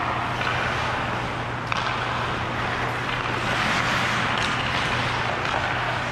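Ice-hockey skates carving and scraping on rink ice, a steady rushing hiss over a constant low hum, with a couple of sharp clicks from sticks or puck.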